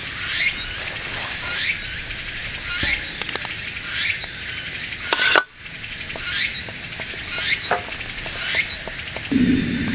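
Wood burning in a small wood-gas camp stove, crackling with scattered sharp pops, while a call rising in pitch repeats about once a second in the background. A low steady rumble starts near the end.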